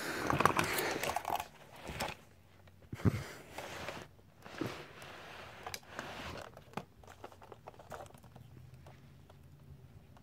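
Kittens scuffling and pawing at a plastic toy on carpet: rustling and scratching, loudest in the first second or so, then scattered light taps and clicks.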